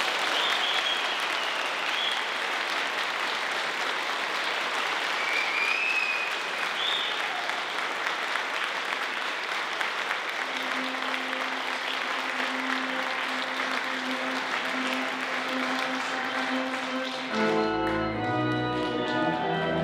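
Wedding congregation applauding and cheering for the newly married couple. A held low note comes in about halfway through, and music starts near the end as the clapping goes on.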